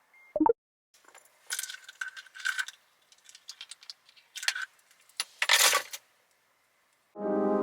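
Small hard objects clinking and rattling in several short clusters, with a light ring, after a single thump near the start. Piano music starts just before the end.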